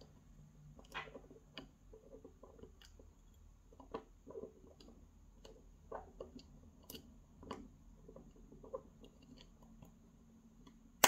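Faint, irregular small metal clicks and scrapes of a thin flat screwdriver tip working at the pins of a Bricard Supersureté lock cylinder to push them down, with one sharper click near the end.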